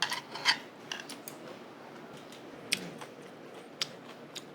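A few scattered light clicks and clinks of tableware at a meal, utensils tapping against dishes.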